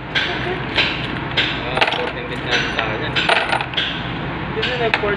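Small metal parts of a dismantled air-conditioning compressor (bolts and steel valve plates) clinking against each other and the tray as they are handled. There is a series of sharp clinks, roughly one every half second, over a steady low hum.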